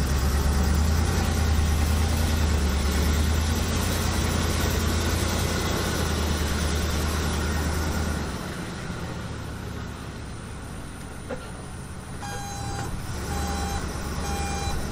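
A heavy vehicle's engine running with a deep rumble, easing off after about eight seconds. In the last few seconds a reversing alarm beeps in a steady series.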